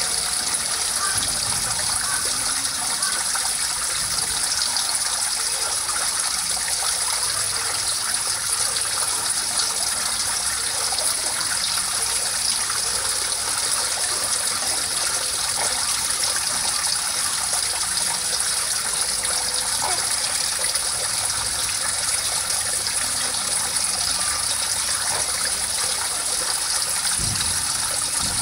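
Water running steadily over a low concrete step into a shallow channel, a continuous trickling and splashing.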